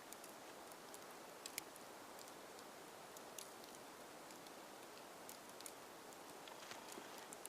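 Near silence: a faint steady hiss with scattered light ticks, snow pattering on the camera in a snowstorm. One tick, about a second and a half in, is a little louder.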